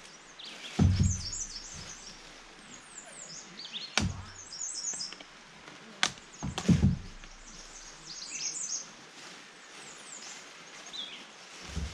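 Birds chirping and singing over and over, with a few dull thumps and sharp clicks; the loudest thumps come about a second in and again about seven seconds in.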